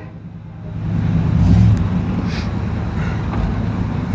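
Car engine and road noise while driving: low and quiet at first, swelling about a second in, then holding steady.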